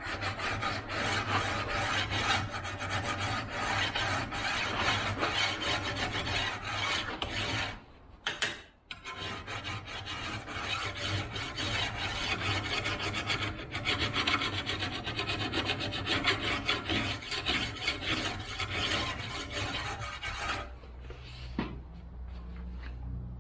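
A flat chainsaw file scraping in quick strokes along the steel rails of a 24" Oregon chainsaw bar, dressing the rails flat and taking off burrs and the wire edge. There is a short break about eight seconds in, and the filing stops near the end.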